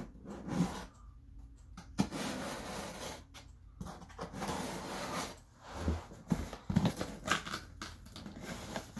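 Cardboard shipping box being worked open: scraping and rubbing of packing tape and cardboard in several short stretches, with a few sharp knocks in between.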